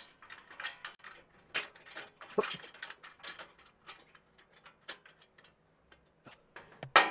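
Small irregular metal clicks and ticks as a bolt and washer are turned by hand into a slot nut through a steel underbody bash plate, with a louder knock near the end.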